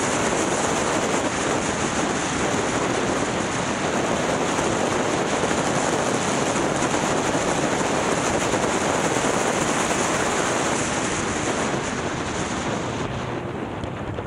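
Steady rush of wind over the microphone of a camera on a moving motorcycle, with the bike's engine and road noise mixed in beneath. The hiss eases a little near the end.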